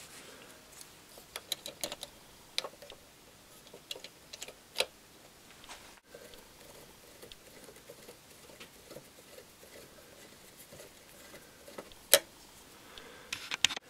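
Faint, scattered small metal clicks and taps as a screwdriver tip works a little retaining pin into the spindle of a paraffin heater's wick-adjuster gear, with one sharper click near the end.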